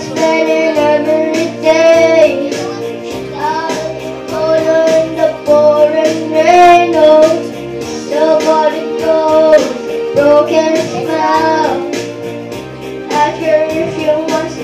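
A boy singing a pop song solo into a handheld microphone over instrumental accompaniment with a steady beat.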